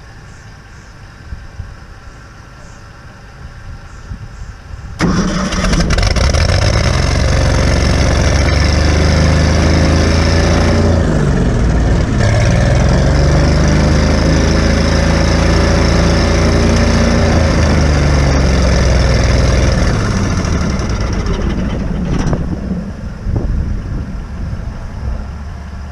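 A sawmill's gasoline engine catches about five seconds in and runs, its speed sagging and recovering once, then dies away near the end. It starts and quits like this because of fuel starvation, which the owner puts down to dirt in the carburetor's needle and seat leaving the float bowl dry.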